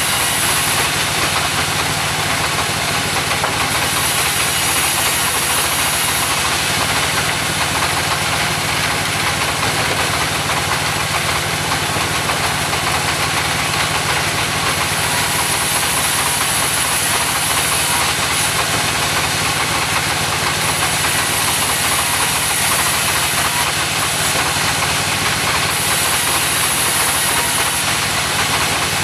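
Mobile sawmill running steadily: a constant engine hum under a dense, even hiss, with a high hiss that swells and fades every few seconds.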